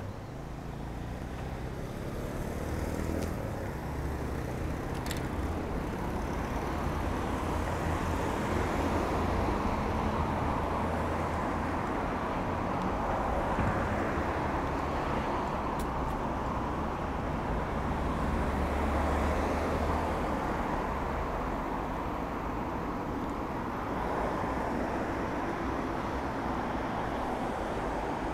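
Road traffic: cars passing on a wide road, their tyre and engine noise swelling and fading over several seconds at a time, with a low wind rumble on the microphone.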